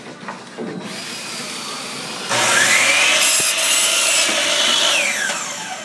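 DeWalt compound miter saw motor spinning up about two seconds in, its blade cutting through a wooden board, then winding down with a falling whine near the end.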